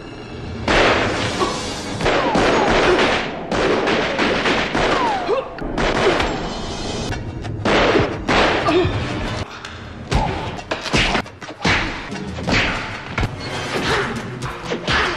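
Action-film fight sound effects: thuds, crashes and blows coming in quick succession, over background music.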